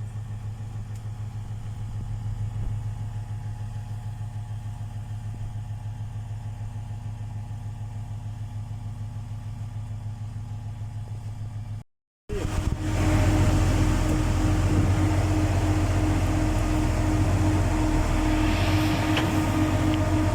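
Valdor 8000 drilling rig's engine running steadily. After a short break about twelve seconds in, it is louder, with a steady whine over the engine.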